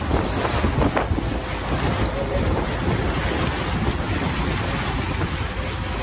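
Wind buffeting the microphone on a moving boat's open deck, over the rush of churned water and a steady low rumble.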